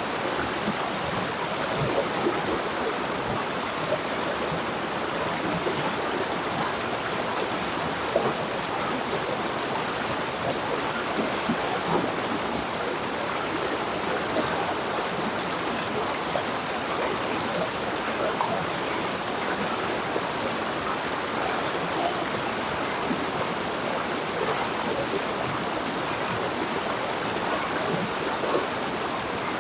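A river flowing steadily over rocks, a constant rushing with small irregular splashes.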